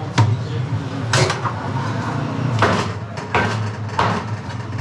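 A butcher's cleaver chopping sheep ribs and shanks on a wooden tree-stump block: five heavy chops at irregular intervals, over a steady low hum.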